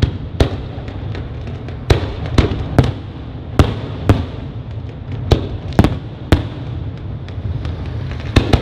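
Fireworks display shells bursting in quick, irregular succession: about a dozen sharp bangs, each trailing off, over a continuous low rumble.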